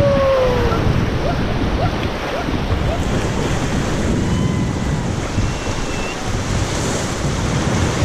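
Rushing whitewater of river rapids around an inflatable raft, with wind buffeting the microphone. A voice's falling call trails off in the first second.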